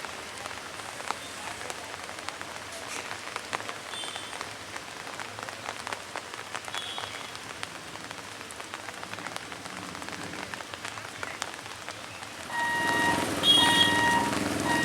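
A steady crackling hiss with many scattered clicks, like rain pattering. About 12 seconds in it grows louder, and a high-pitched horn gives several short toots over a low rumble.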